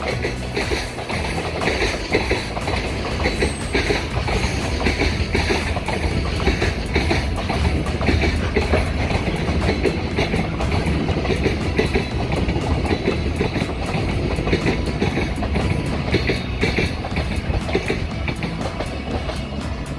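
Freight train wagons rolling past at speed, a steady rumble with continuous clickety-clack of wheels over rail joints.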